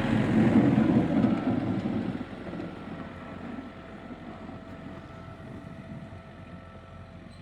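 Old John Deere tractor's engine running: loud for about the first two seconds, then growing steadily quieter.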